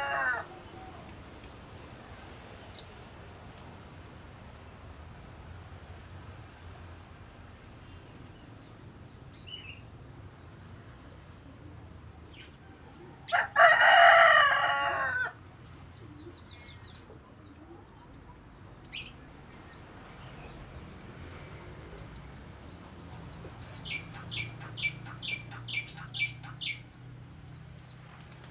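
A rooster crows once, a loud call of about two seconds, midway through. Near the end a small bird gives a quick run of about eight short, high chirps.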